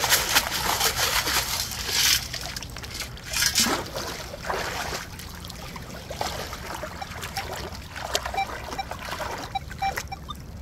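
Water splashing as a sieve scoop of wet gravel is dumped into a shallow stream, the loudest burst in the first two seconds, followed by sloshing from boots wading through the water.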